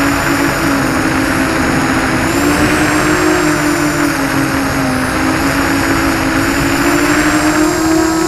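ZMR-250 FPV quadcopter's motors and propellers whining steadily, heard from its onboard camera with a rush of air. The pitch wavers with the throttle, dips midway and rises near the end as it climbs.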